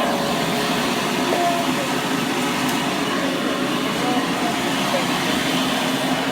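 Hoover Model 700 upright vacuum cleaner running steadily with its cleaning tools attached, its motor giving an even hum and rushing air. The machine has little suction: 'this thing's got no power'.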